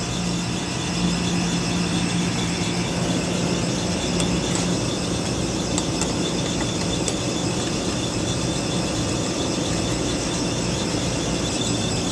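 Steady machine noise: a constant low drone with a high whine over it, and a few faint clicks.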